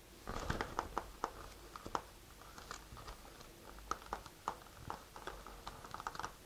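Clear vinyl bag film and webbing strap being handled, giving light, irregular crinkles and small clicks as a metal snap-button post is worked through a hole in the strap.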